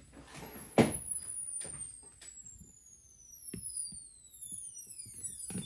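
Solid-state Tesla coil sounding as its interrupter frequency is swept: a high whistle glides steadily down in pitch, with more tones fanning out near the end. Irregular sharp snaps come through it, the loudest about a second in.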